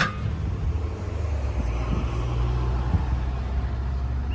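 Hino 921 truck's diesel engine idling with a steady low hum, with one sharp knock right at the start.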